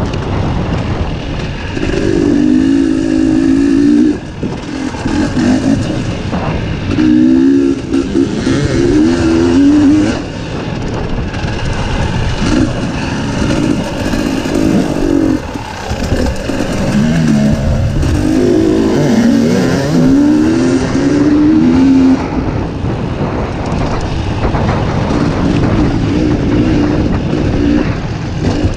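Dirt bike engine being ridden hard, revving up and down in repeated surges of throttle every few seconds as the rider goes over jumps and through turns on a dirt track.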